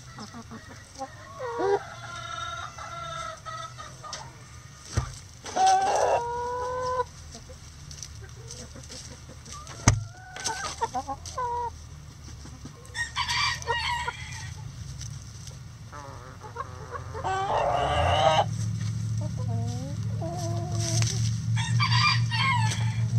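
Backyard chickens clucking and calling in a string of separate calls, with a rooster crowing once in a long held call. A low steady hum comes in near the end, and there are two sharp knocks.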